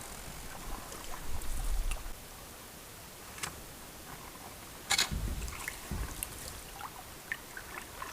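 Canoe paddling on calm water: paddle strokes swishing and water trickling off the blade, with a sharp knock about five seconds in, typical of the paddle touching the hull.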